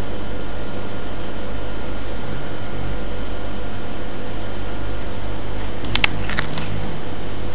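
Steady low hum and hiss of room noise, with a short click and a few brief squeaks about six seconds in.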